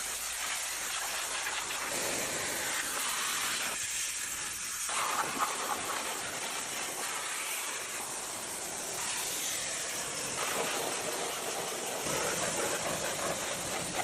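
A steady hiss of spray, wavering slightly in tone, as from a spray tool at work.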